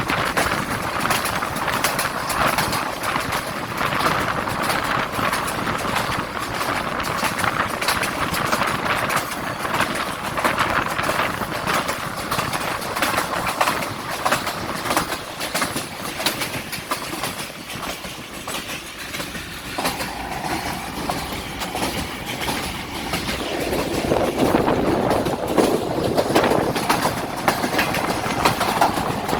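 Passenger train running on the rails: a continuous rumble and rattle with many short clicks, the sound turning lower-pitched and a little louder near the end.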